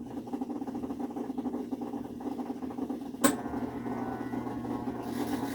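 Kenmore washing machine running on its spin cycle with a towel load: a steady motor hum with faint rapid ticking, which the owner puts down to the hose at the back tapping. There is a sharp click a little past halfway, and near the end a hiss comes in as the water pump tries to start.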